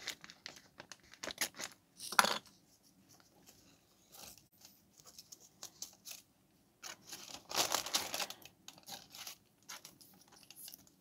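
Paper being torn by hand in short rips, with rustling as the sheets are handled; one sharp rip about two seconds in and a longer run of tearing and rustling near the end.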